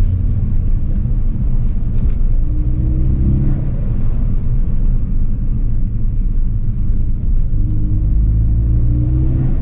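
Ford Focus ST's turbocharged four-cylinder engine pulling under throttle, its pitch rising twice, about two and a half seconds in and again near the end, over a steady road rumble.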